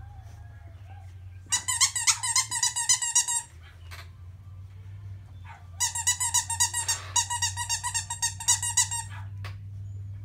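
Squeaker in a plush dog toy squeezed rapidly by hand, giving two runs of quick, high squeaks of one steady pitch: the first about two seconds long starting a second and a half in, the second about three seconds long from about six seconds in.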